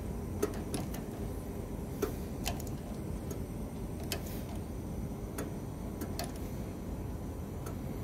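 Ratcheting wrench clicking in irregularly spaced single clicks as it tightens the pressure-tap plug back into a furnace gas valve's outlet port.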